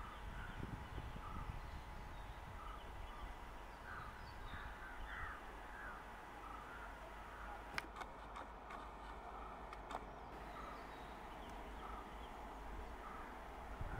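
Faint bird calls: short calls repeated one or two a second, over a low background rumble, with a couple of sharp clicks in the middle.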